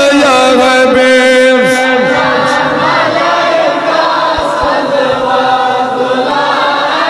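Group of men chanting a devotional Islamic hymn together, with long held, wavering notes.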